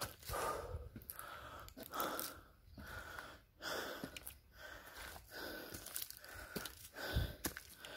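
A person breathing hard, in and out with a swell about every second and a half, out of breath from climbing steep stone steps, with a few sharp footfalls.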